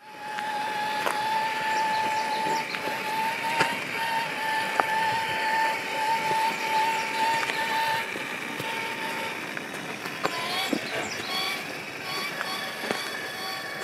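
Axial SCX6 1/6-scale RC crawler's electric motor and gearing whining at a steady pitch as it creeps along, with small clicks of tyres on gravel; the whine stops about eight seconds in.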